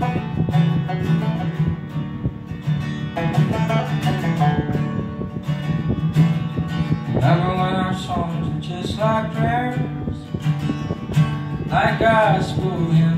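Live acoustic guitar and banjo playing a folk song together, with a man's singing coming in about seven seconds in.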